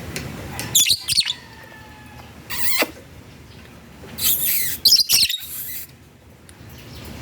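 African lovebirds giving short bursts of shrill, high-pitched chirping calls, several times with pauses between.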